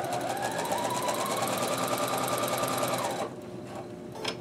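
Electric sewing machine stitching a seam through fabric, its motor whine rising as it speeds up and then holding steady, stopping abruptly about three seconds in. A single sharp click comes near the end.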